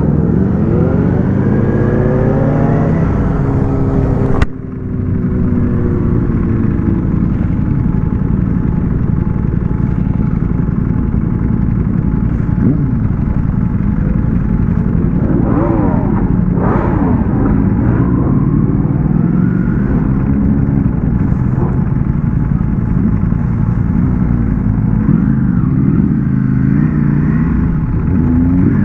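Ducati Panigale V4S's V4 engine heard from the rider's seat under way, its pitch climbing as the bike accelerates over the first four seconds. A sharp click comes about four and a half seconds in, then the engine note drops and settles into a steady drone with wind noise, with a few brief revs later on.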